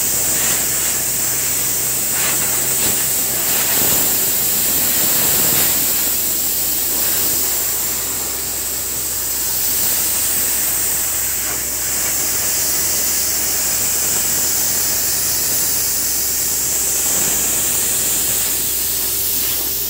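Compressed air hissing steadily from an air line, blowing dust off a Tata Hitachi crawler drill rig, with a low steady machine hum underneath.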